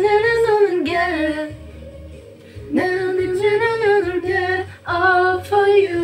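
A solo voice singing a slow melody in three held phrases, with a short break about halfway through, over a faint low accompaniment.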